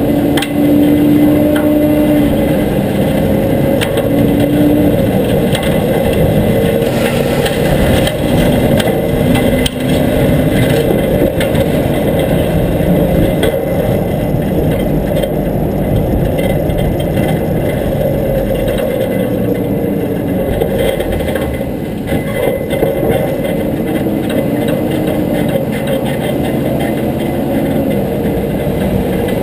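Front-load garbage truck driving, its engine running with tyre and road noise heard close from the truck's side. The engine pitch rises and falls as the truck speeds up and slows.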